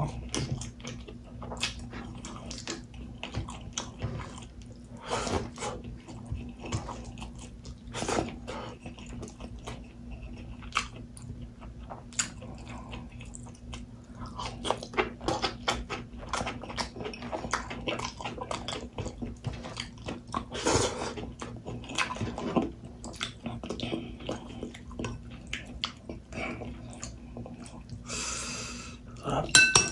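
Close-miked chewing of a person eating pork, rice and vegetables with his fingers: irregular wet mouth clicks and smacks throughout, with a short hissing sound near the end.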